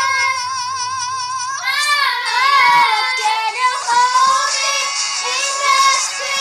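A child singing: a long high note with wide vibrato, then a quicker melodic line from about a second and a half in, with music underneath.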